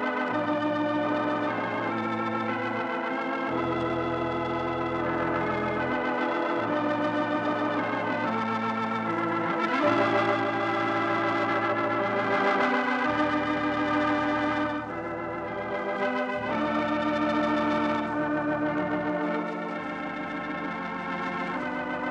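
Organ music: slow held chords over bass notes that change every few seconds. It is the closing music after a 1940s radio programme's sign-off.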